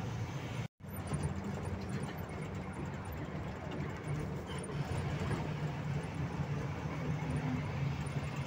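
Steady engine and road noise inside the cab of a moving trailer truck. The sound cuts out for an instant just before a second in.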